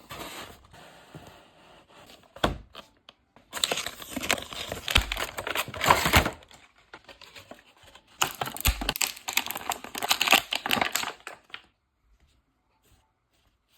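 Action figure packaging being opened by hand: a thump a couple of seconds in, then two long spells of crinkling and crackling plastic and cardboard, stopping about two seconds before the end.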